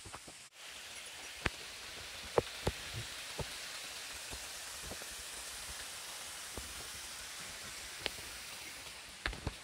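Steady rushing water noise with scattered, irregular sharp ticks.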